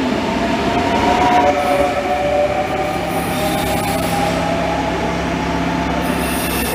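CFL Series 2200 double-deck electric multiple units running through a station. There is a rising traction-motor whine at first, then from about three seconds in a steady low hum with thin high-pitched squeals coming and going.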